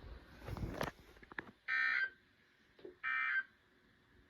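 Short buzzy data bursts from a NOAA Weather Radio SAME signal, about a second and a third apart: the end-of-message code that closes the weekly test. Two bursts fall about halfway through, and a third starts just as the sound ends. Before them come a faint rustle and a couple of soft clicks.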